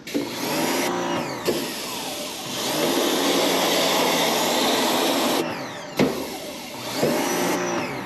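Pressure washer spraying water through an AC evaporator coil to knock dust out of it, a loud steady hiss in long bursts that stops for about a second and a half near the end, its machine pitch sweeping as spraying starts and stops. A single sharp knock about six seconds in.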